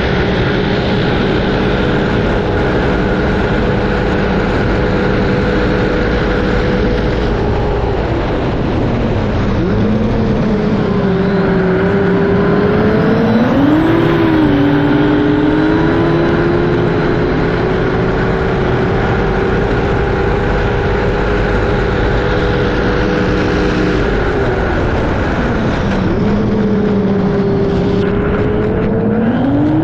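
Racing powerboat engine at high revs, loud and steady. Its pitch drops about eight seconds in, climbs back with a wobble a few seconds later, holds, then drops again late on and climbs once more near the end.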